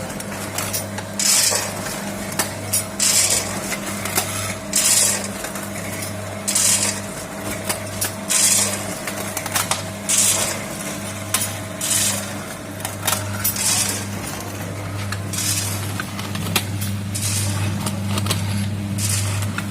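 Automatic center-seal snack packaging machine with a cup filler, packing pilus into bags: a steady motor hum with a short, sharp noisy burst about every two seconds, one per bag cycle.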